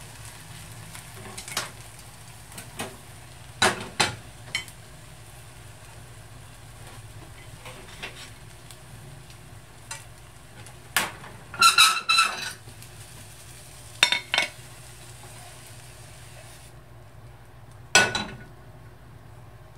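Butter and egg sizzling softly in a nonstick frying pan, with chopsticks clicking and clinking against the pan, the loudest a quick ringing run of clinks about twelve seconds in. The sizzle stops about seventeen seconds in, and one last clink comes near the end.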